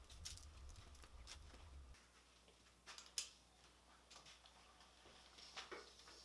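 Faint, sparse light clicks and taps in a quiet room, the sharpest about three seconds in, over a low hum that stops about two seconds in.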